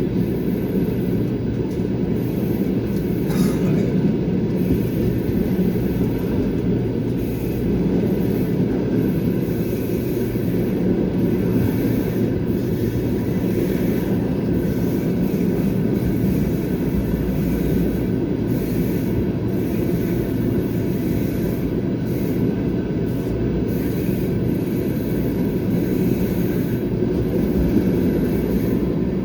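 Passenger train running, heard from aboard the train: a steady, loud rumble and clatter of the carriage wheels on the rails.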